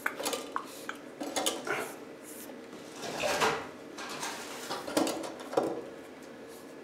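Electrical cable being pulled up and fed into a ceiling light box: scraping and rustling of the cable with small clinks and clicks against the box, and a longer scrape about three seconds in.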